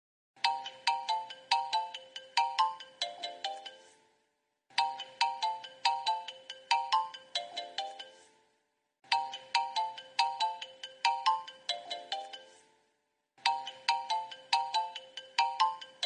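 The iCarrot phone ringtone plays: a short melody of quick notes, each struck and then fading, over a held lower tone. The phrase repeats four times, with a brief pause between each.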